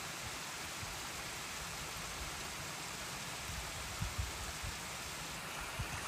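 Steady rushing of a waterfall in full flow, with a few brief low thumps about four seconds in and again near the end.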